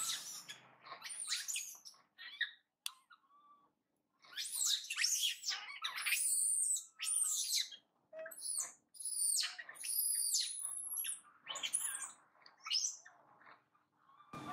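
Young long-tailed macaque screaming: a series of shrill squeals that rise and fall, a few at first, then, after a short lull, a dense run of them lasting most of the rest.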